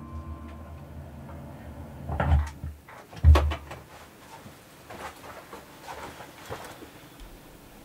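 Handling noises: two short knocks about two and three seconds in, then a scatter of fainter clicks and taps.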